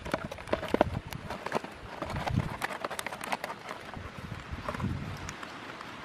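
Irregular clicks and light knocks of hands working a plastic bottle and bamboo sticks into a bird trap, with a few dull thuds; the clicking thins out after about three and a half seconds.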